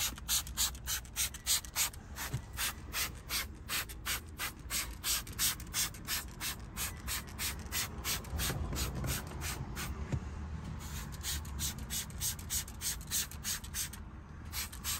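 Hand trigger spray bottle squirting interior cleaner in quick repeated sprays, about three a second, with a couple of brief breaks near the end.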